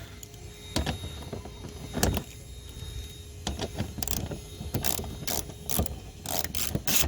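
Irregular clicks, knocks and rattles of a socket wrench and plastic parts being handled while working on the car, in scattered single taps at first and then more often near the end.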